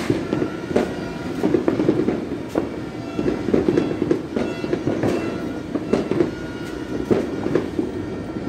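Firecrackers going off in a dense, irregular crackle, with sharper bangs every second or so.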